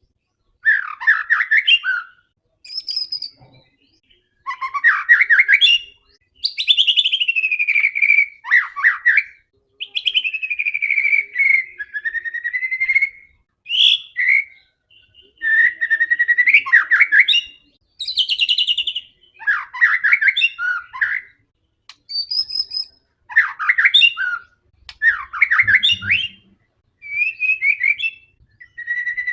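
White-rumped shama (murai batu) in full, aggressive fighting song: varied loud phrases of gliding whistles and rapid trills, one after another about every two seconds with short pauses between.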